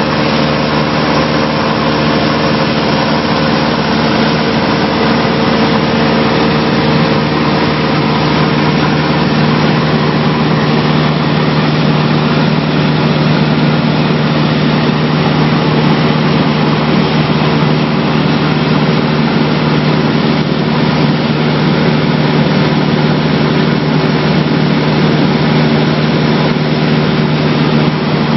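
Piston engine and propeller of a single-engine high-wing light aircraft droning steadily in flight, heard from inside the cabin.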